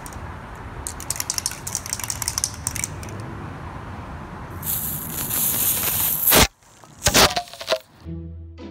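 Aerosol spray can shaken with a clicking rattle, then sprayed in one loud, steady hiss lasting nearly two seconds. Sharp handling knocks follow, and light music with a celesta-like tune starts near the end.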